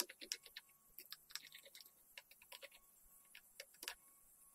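Faint, irregular small clicks and ticks of a screwdriver working the screws out of the spindle cover on an angle grinder's gear head, with a slightly louder click about four seconds in.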